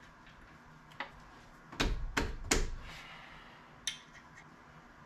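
Short metallic clicks of a 13 mm open-end wrench on the brake caliper's slide-pin bolts as they are loosened: one light click about a second in, three sharper ones close together around two seconds, and another near four seconds.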